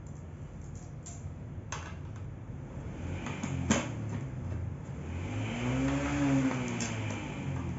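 Small sharp clicks of metal bolts and parts being handled against an office chair's steel seat-mechanism plate. About five seconds in, a passing motor vehicle's engine swells up, rising and then falling in pitch over about two seconds, the loudest sound here.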